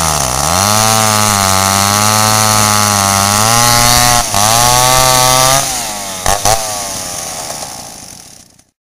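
Two vintage Stihl 090 two-stroke chainsaws running hard as they cut through big logs. The engines bog down slightly in pitch just after the start, then hold steady under load. About two-thirds of the way through the sound drops, two sharp knocks are heard, and it fades out.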